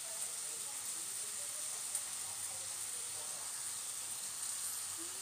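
Steady hiss with a thin, constant high-pitched whine over it.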